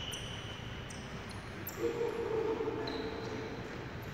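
Athletic shoes squeaking on an indoor court floor as players run: short, high squeaks scattered throughout, with one longer, lower squeal about two seconds in, in an echoing hall.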